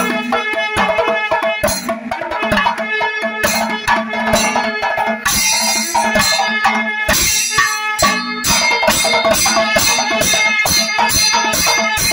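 Panchavadyam temple ensemble playing: maddalam barrel drums struck by hand with finger caps, timila hourglass drums and clashing ilathalam cymbals in a dense, driving rhythm of strokes.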